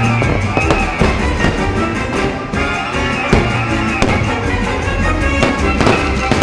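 Orchestral music from the fireworks show's soundtrack, with several fireworks bangs going off through it.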